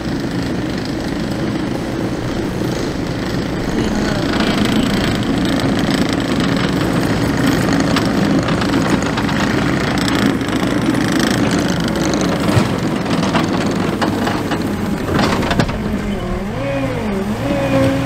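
John Deere 317G compact track loader running and working, its diesel engine drone growing louder about four seconds in as it drives toward and into a dirt and brush pile. A few sharp knocks come later, and near the end the pitch wavers up and down as the machine pushes into the pile.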